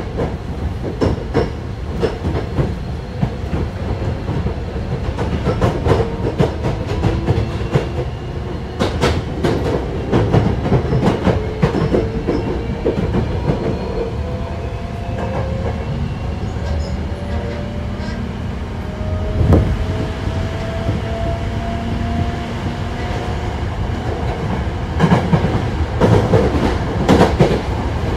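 Hankyu 1000 series electric train running, its Toshiba permanent-magnet synchronous traction motors and inverter giving a whine that rises slowly in pitch as the train gains speed, over steady wheel-on-rail rumble and clicking rail joints. A heavy knock comes about two-thirds of the way in, and a quick run of clacks near the end as the wheels cross joints or points.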